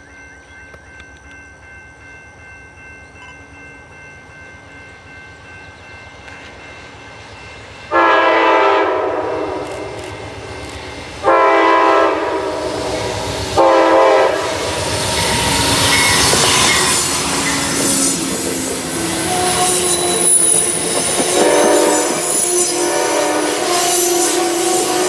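Approaching Amtrak diesel passenger train sounding its horn in a grade-crossing pattern: two long blasts, a short one, then a sustained blast that merges into the rising noise of the train. The train's rumble builds beforehand, and the coaches then clatter past on the rails, with wheel squeal on the curve.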